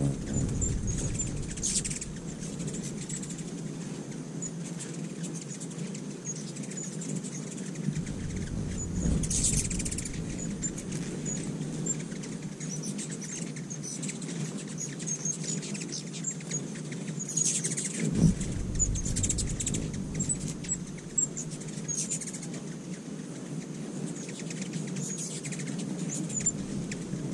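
Ruby-throated hummingbirds at feeders: short, high chittering chip calls scattered throughout, over a steady low hum, with a brief low thump about two-thirds of the way through.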